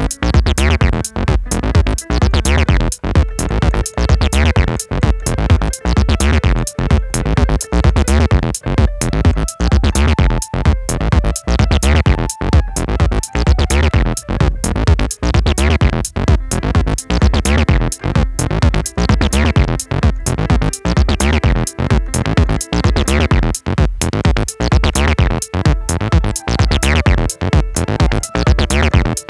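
Electronic music with a steady drum-machine beat and synth bass, with keyboard and synth parts held over it.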